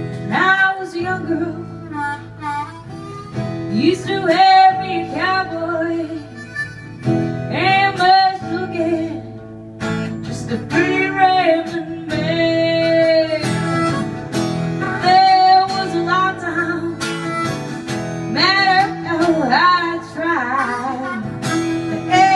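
Live acoustic music: a strummed acoustic guitar accompanies a harmonica melody and a woman singing, in phrases.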